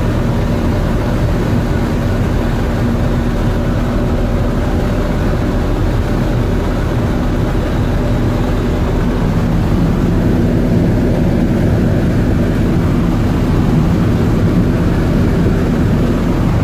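A 1978 Mack CF611 fire truck's turbocharged ENDT673 Thermodyne diesel running steadily at highway speed, heard from inside the cab along with tyre and road noise. It gets slightly louder about two-thirds of the way through.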